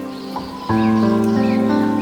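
Background instrumental music of sustained chords, shifting to a new chord about two-thirds of a second in.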